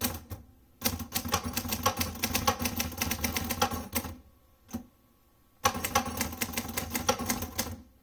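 1960s Hermes 3000 manual typewriter being typed on: two quick runs of keystroke clacks with a short pause between them and a single clack in the pause. The machine is still dirty and its action a little sticky.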